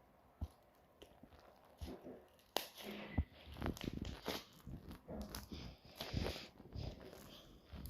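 Irregular crunching, tapping and rustling handling noises, sparse at first and busier from about two and a half seconds in.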